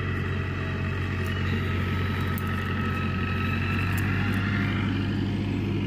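Steady low rumble with a faint, slightly wavering whine above it.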